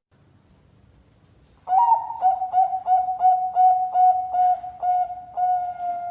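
Zebra dove (Bangkok-strain perkutut) cooing: after a second and a half of quiet, a rising opening note, then a run of short dipping coos about three a second, ending on a longer held coo.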